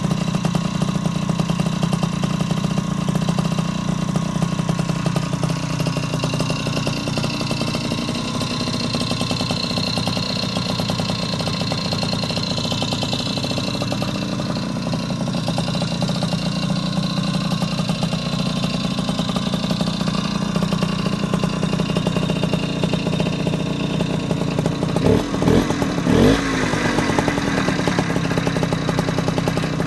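Puch Maxi S moped's 49 cc two-stroke single-cylinder engine idling steadily, revved briefly a few times near the end.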